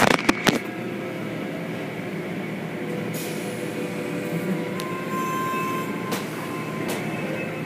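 Automatic tunnel car wash running: a steady machinery rumble with hissing water spray as the hanging cloth curtains sweep over a car. A cluster of loud knocks comes right at the start, and a couple of sharp clicks come about six and seven seconds in.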